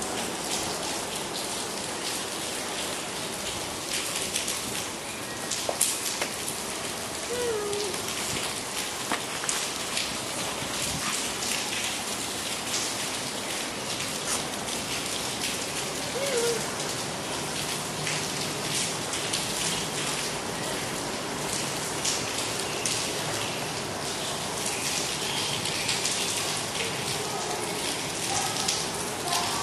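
A steady hiss full of small crackles and ticks, like rain pattering on a surface, with a few faint short squeaky notes scattered through it.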